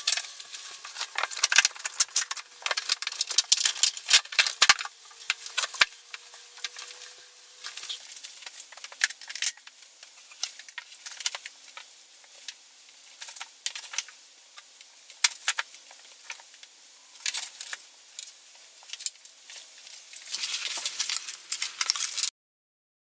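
Irregular light clicks, taps and rattling of vinyl flooring planks being handled and laid. It ends with a couple of seconds of cardboard rustling from the plank box before the sound cuts off abruptly.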